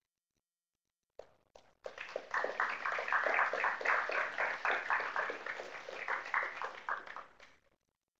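Audience applauding, starting about a second in, swelling, then dying away shortly before the end.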